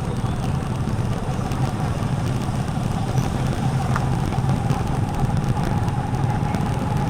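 Motorcycle engine running steadily while riding, with a continuous low rumble and a steady whine.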